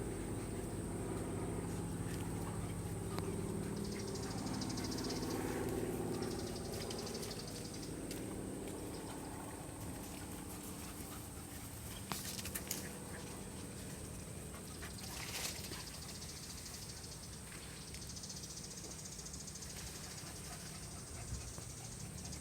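Pet dogs making faint sounds over a steady background hum, with a few sharp clicks near the middle.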